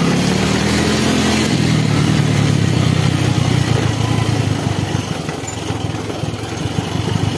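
Small motorcycle engine running at low speed, with wind noise on the microphone. The engine note steps down about a second and a half in, and the sound eases a little in the second half.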